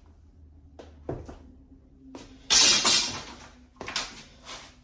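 Soft-close drawer slide hardware being worked by hand: a few light clicks about a second in, then a loud scraping metallic rush about 2.5 s in as the slide is pushed back against its resistance, with shorter clatter near the end.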